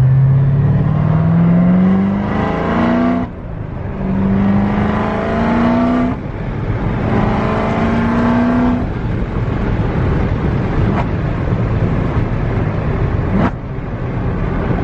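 Supercharged LT4 V8 of a C7 Corvette Z06 fitted with new Kooks headers, heard from inside the cabin as the car accelerates through the gears. The engine note climbs in pitch, drops back about 3 s and 6 s in as it shifts up, climbs a third time, then settles into a steady cruise.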